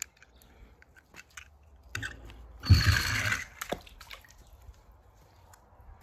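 A small die-cast toy car splashing into swimming-pool water about three seconds in, after a few light clicks and a thump.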